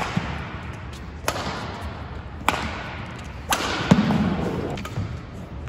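Badminton rackets striking the shuttlecock in a fast rally, sharp smacks about a second apart that echo in a large hall. About four seconds in, a heavier low thud of a player's footwork hitting the court is the loudest sound.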